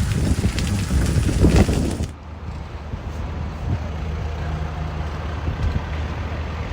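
Rough gusty noise with a few knocks, then after an abrupt change about two seconds in, a steady low engine-like hum, as of a vehicle running.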